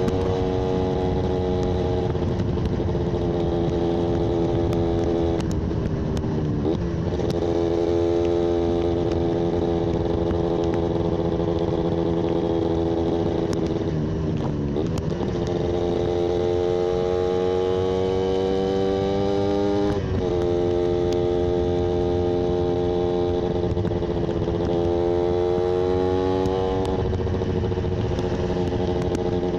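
Yamaha 125ZR's single-cylinder two-stroke engine running without pause, its note holding steady or slowly climbing, then dipping sharply and picking up again four times.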